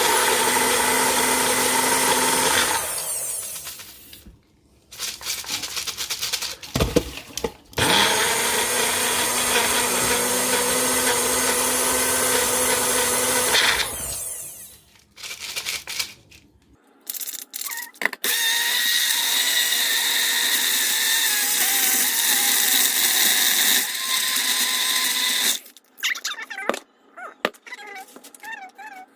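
Countertop blender blending frozen berries and yogurt into a smoothie, run in separate bursts: a few seconds at the start, a longer run in the middle after a pause, then another steady stretch later with less low end. Quieter knocks and clatter fill the pauses.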